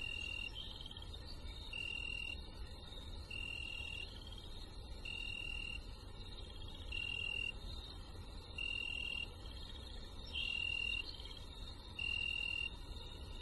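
Night forest ambience of calling insects: one steady high-pitched call about half a second long repeats roughly every one and a half seconds, with softer trilling calls a little higher, over a low steady rumble.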